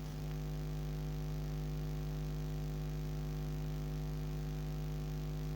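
Steady electrical mains hum, an unchanging low buzz with no other sound.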